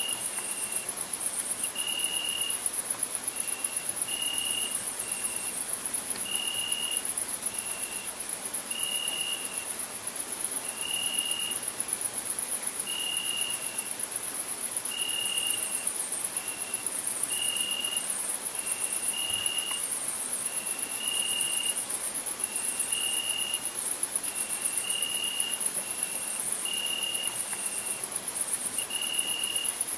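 Crickets chirping: a steady, very high, rapidly pulsing trill, with a lower short note repeating about once a second throughout.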